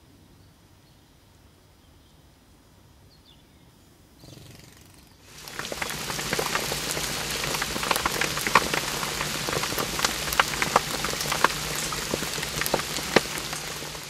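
Rain falling on pond water: a dense, steady patter with many sharp single drop splashes. It starts about five seconds in, after a faint lead-in.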